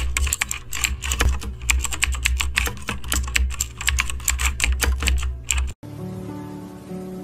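Rapid computer-keyboard typing, dense clicking over a low pulsing bass. About six seconds in it cuts off abruptly and soft music with held notes takes over.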